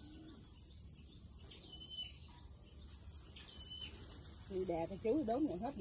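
Steady high-pitched insect chorus, running unbroken, with three short high chirps spread through it.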